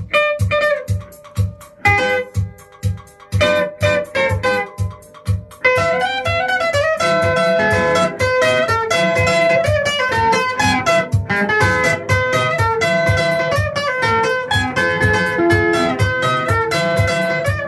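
Band instrumental with picked guitar lines over a steady bass-and-drum beat. For the first six seconds the guitar plays in short phrases between the beats, and from then on a fuller lead guitar runs without a break.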